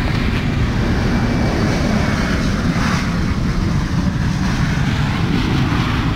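Wind buffeting the camera microphone: a steady, loud, choppy rumble with an even rush of noise over it.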